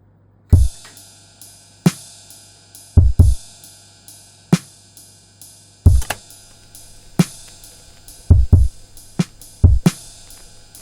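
Music: a sparse drum beat of deep kick hits and sharp snare-like hits over fast steady ticking and a faint held low tone.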